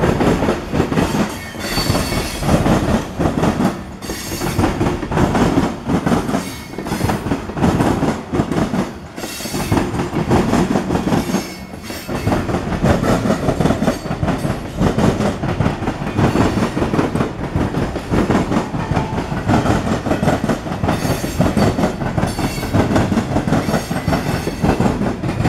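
Freight cars of a passing CSX train, open-top gondolas, rolling by close at hand: steel wheels clattering and rumbling on the rails, loud and continuous.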